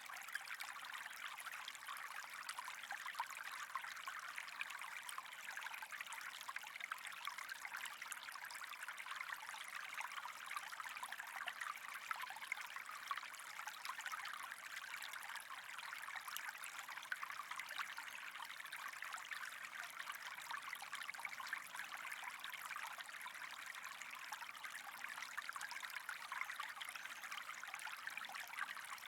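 Running water trickling steadily, with many small ticks and splashes in it.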